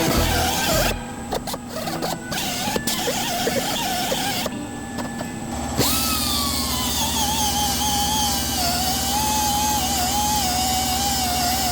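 Electric power tool running, with a whine that drops in pitch about six seconds in as it is loaded, then holds unsteadily.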